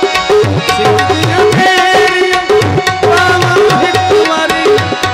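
Instrumental break in a Punjabi folk song: tabla playing a steady rhythm with deep bass strokes, under a melodic instrument carrying the tune.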